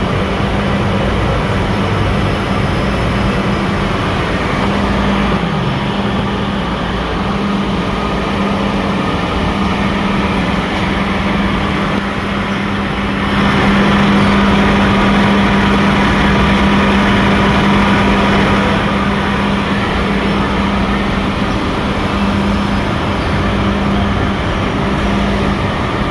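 A machine running steadily with a constant low hum and a fainter higher whine, growing louder for about five seconds midway.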